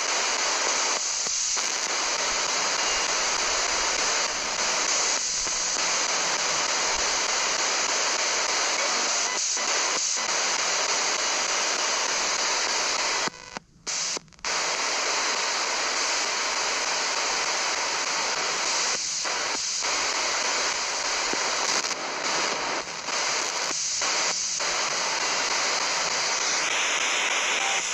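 Spirit box sweeping through radio stations: a continuous hiss of radio static with short, sudden dropouts, the longest about halfway through.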